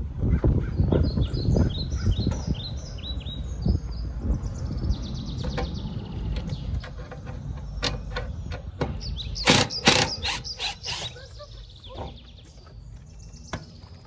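Small birds chirp in a quick series of falling chirps over a low rumble. Later come a handful of sharp clicks and knocks, the loudest around ten seconds in, from a power drill with a screwdriver bit working screws in a plywood frame.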